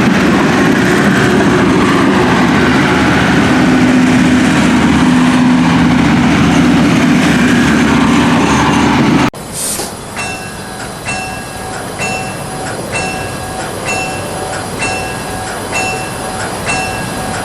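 A passenger train rolling past close by, with a dense, steady rumble of wheels on rail. About nine seconds in, it cuts off abruptly to a quieter, different sound: a short tone that repeats about once a second.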